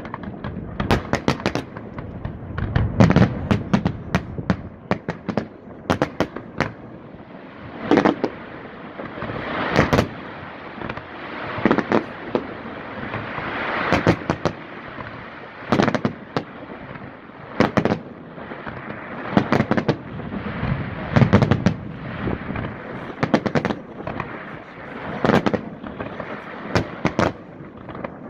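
Fireworks display: repeated loud shell bursts, often in quick clusters every second or two, over continuous crackling and rumble.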